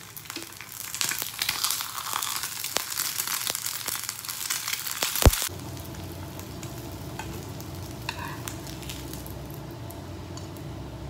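Egg frying in hot oil in a frying pan: a dense sizzle and crackle with small spatters and utensil clicks while it is flipped. About five seconds in there is a sharp knock, then the sizzle cuts off and a steady low hum remains.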